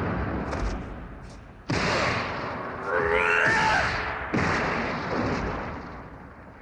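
Dramatic film sound effects: two loud sudden crashes, about a second and a half in and again near four and a half seconds, each fading away over about two seconds, with a short wavering cry between them.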